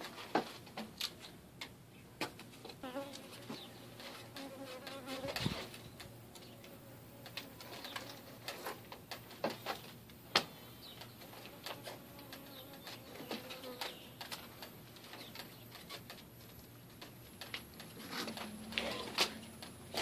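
Honey bees buzzing around an opened hive, the buzz swelling and fading, with scattered sharp clicks and knocks as the honeycomb is pulled out of the roof eave.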